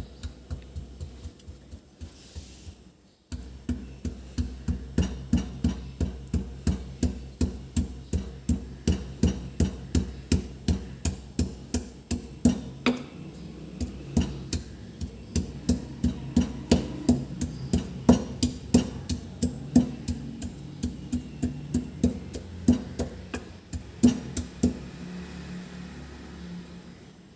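A piece of ginger being pounded with a rolling pin: a steady run of knocking strikes, about three a second, starting a few seconds in and stopping shortly before the end.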